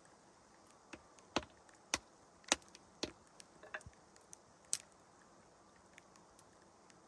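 A series of sharp, irregular knocks and clicks, bunched between about one and five seconds in, over a faint steady hiss.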